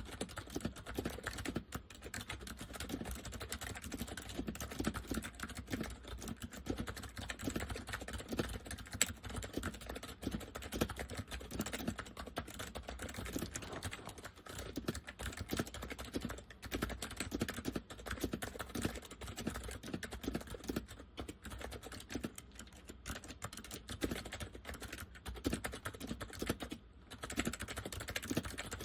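Continuous fast typing on an Acer 6312K7 keyboard with Acer semi-mechanical switches: a dense run of key clicks with a deep sound from the chassis.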